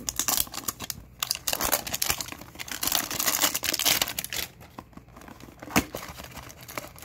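Clear plastic shrink-wrap being torn and peeled off a cardboard trading-card hanger box, crinkling densely for about four and a half seconds. After that come scattered clicks and taps as the cardboard box is handled and opened, with one sharper tap near the end.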